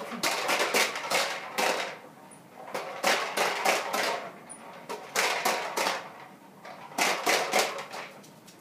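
Push-along corn popper toy rolled across a rug, its balls popping and clattering inside the plastic dome in four bursts of rapid clacks with short pauses between.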